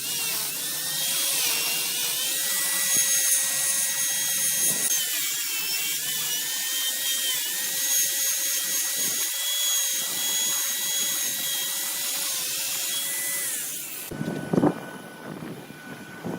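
Wood lathe running with a steady, slightly wavering whine, while a tool cuts the spinning wood with a loud hissing scrape. About fourteen seconds in, it cuts off abruptly, leaving a quieter background with a few dull knocks.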